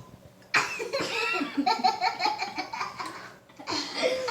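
Hearty laughter: a quick run of short, rapid laughing pulses starting about half a second in and lasting nearly three seconds, with a fresh burst of laughter beginning near the end.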